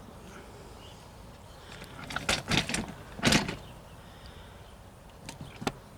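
Tools and parts being rummaged through and handled: a cluster of clattering knocks about two seconds in, the loudest just after three seconds, then a couple of lighter clicks near the end.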